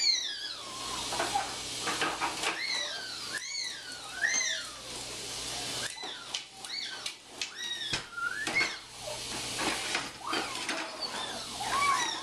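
Toddlers squealing and shrieking in very high cries that swoop up and down, a dozen or so in the stretch. Between them come scattered small clicks and knocks from plastic tricycles rolling on a concrete floor, over a steady hiss.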